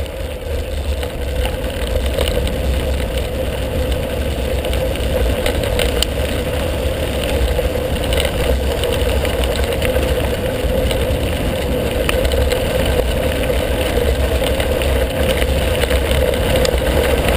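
Steady rush of wind buffeting a handlebar-mounted camera's microphone, with tyres rolling over a gravel dirt track while riding.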